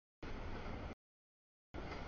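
Noise of a CSX double-stack intermodal freight train rolling past on the rails, cut into two short chunks by audio dropouts, with dead silence between them.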